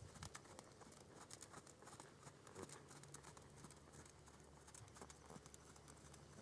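Near silence with faint, light ticks of hoofbeats from a New Forest pony trotting on an arena's sand footing.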